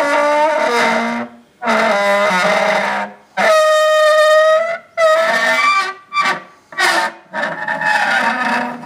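Eerie trumpet-like groaning tones of the kind heard in viral 'strange sounds from the sky' recordings: about seven blasts, the first ones around a second and a half long with pitch sliding down, a steady held one in the middle, then shorter ones near the end.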